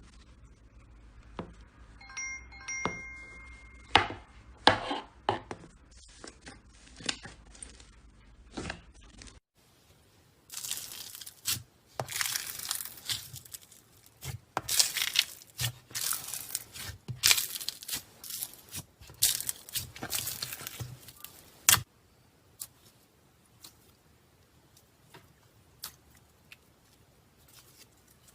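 Slime being squeezed and stretched by hand, making sticky pops and crackling. Separate sharp pops come first, then a dense crackling run from about ten seconds in that dies away to a few faint clicks after about twenty-two seconds.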